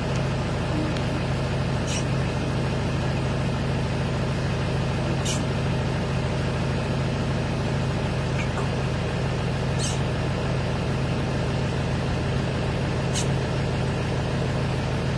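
A motor vehicle's engine idling with a steady low hum, and a few sharp high ticks every few seconds.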